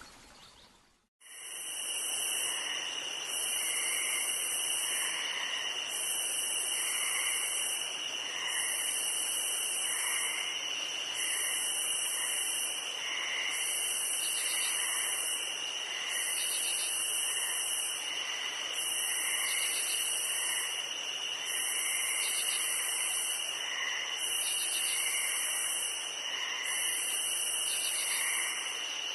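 Insect chorus: a steady high trill with a shrill buzz that pulses on and off about every two seconds, starting after a brief gap about a second in.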